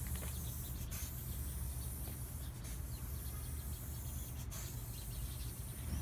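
Aerosol spray-paint can hissing as white paint is sprayed over a tabletop. The hiss cuts out briefly twice, about a second in and again past the middle, between passes.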